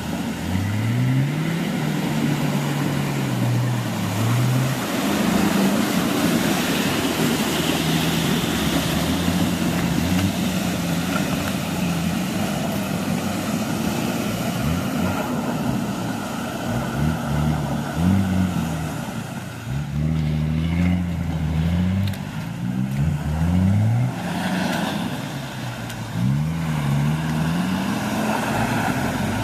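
Off-road 4x4 engines on oversized mud tyres revving hard over and over, the pitch swinging up and down with quick jabs of throttle, over the steady hiss and spatter of spinning wheels throwing mud and water. First a Mitsubishi Pajero working through a mud pit, then a Nissan Patrol spinning its wheels across a flooded, rocky track.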